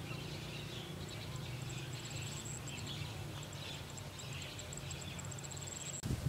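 Countryside ambience: faint scattered bird chirps and a thin, high, pulsing trill over a low steady hum.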